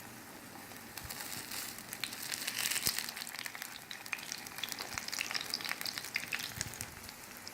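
Aloo tikki (potato patties) shallow-frying in hot oil in a pan, sizzling steadily. About a second in, the sizzle grows louder with a run of sharp pops and clicks, densest two to three seconds in, as the patties are turned over.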